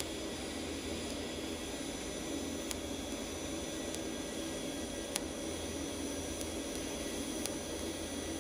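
TIG welding arc from a YesWelder Firstess MP200 in lift-TIG mode, running on 14-gauge steel: a steady hiss with a low hum underneath. A few faint ticks come through as filler rod is fed in.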